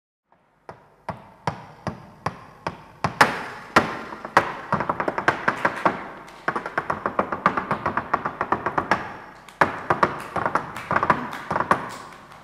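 Castanets played solo: a few single clicks at first, then from about three seconds in fast rattling rolls and sharp accented strikes, each with a short ringing tone.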